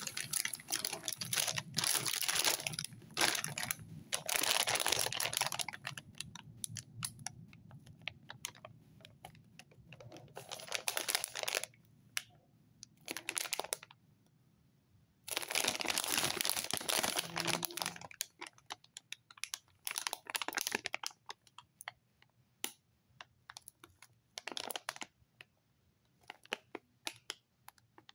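Thin plastic bread packaging crinkling and crackling as hands turn and squeeze it. The noise comes in dense bursts with short pauses between, then thins out to scattered crackles near the end.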